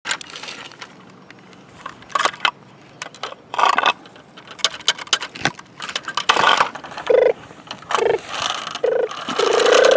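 Plastic toy skip-loader truck being handled, with irregular rattling clicks and scrapes from its lifting arms, chains and skip container. From about seven seconds in, a few short pitched tones sound, the last one held longer.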